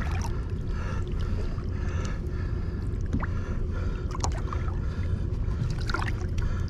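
Boat engine running slowly in gear, a steady low hum, with water gurgling along the hull and a few light clicks.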